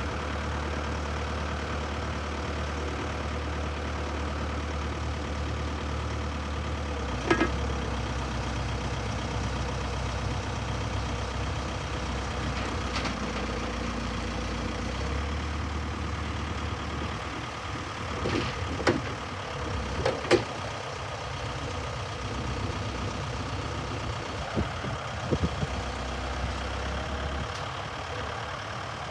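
The 98 hp Volvo diesel engine of a 2005 Volvo BL70B backhoe running at idle, its low hum shifting a few times. Several short, sharp knocks are heard over it, once about a quarter of the way in and in a cluster past the middle.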